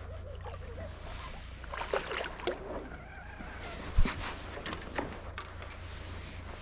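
Fishing line singing under heavy strain from a big hooked fish: a wavering squeaky whine with scattered clicks over a steady low rumble, and a sharp thump about four seconds in.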